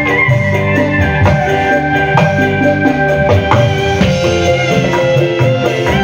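Live dangdut koplo band music: drum kit and kendang hand drums beating out a rhythm under sustained keyboard melody tones.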